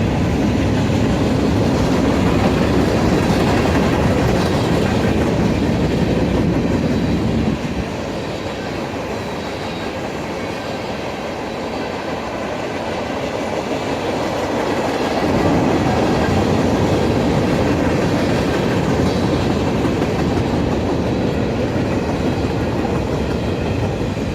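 Freight cars of a Union Pacific manifest train rolling past, a steady rumble of steel wheels on the rails that drops a little about seven seconds in and swells again about fifteen seconds in.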